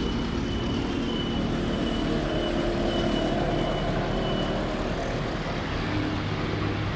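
A heavy vehicle's engine running close by, over steady street-traffic noise. A high-pitched beep repeats at intervals until a little past the middle.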